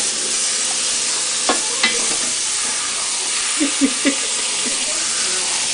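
Meat sizzling steadily in a frying pan, with a few sharp clicks of a utensil against the pan.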